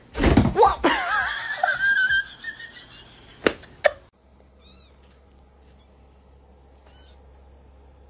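A cat meowing in a long cry that wavers up and down in pitch, followed by two sharp clicks. After that it is quiet apart from two faint high chirps.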